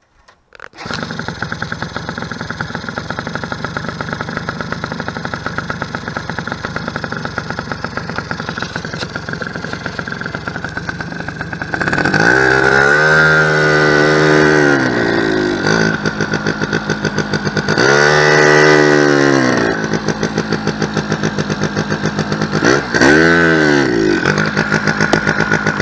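The ETON Viper 90R ATV's small single-cylinder two-stroke engine idles, then is revved three times, rising in pitch and falling back to idle each time. The owner says this engine cuts out when it is throttled up in gear, which he puts down to fuel starvation from a sticking float or a badly set carburettor needle.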